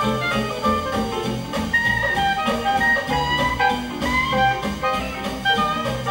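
Small traditional jazz band playing in swing time, with a clarinet carrying the lead melody over a steady beat from the rhythm section.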